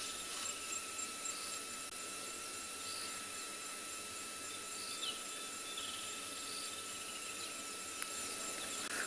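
Steady insect chorus in the bush: an even, high buzz and hiss with a thin constant tone, and a few faint, brief bird chirps.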